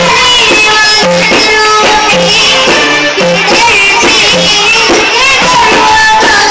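A song: a young girl singing over an instrumental backing track with plucked strings and a bass note that recurs about once a second.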